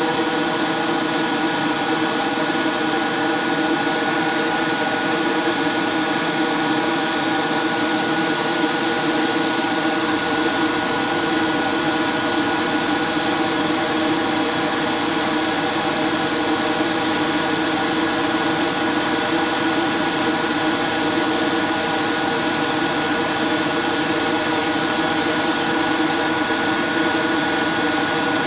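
Gravity-feed airbrush spraying paint with a steady hiss that breaks off for a moment a few times as the trigger is let go. Under it runs the steady hum of a small motor.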